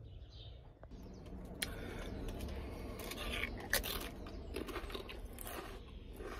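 A man chewing stale Pringles potato crisps close to the microphone, with irregular crunches starting about a second and a half in.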